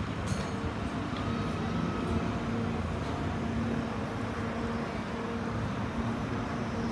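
Steady low rumble of city traffic with a faint continuous hum.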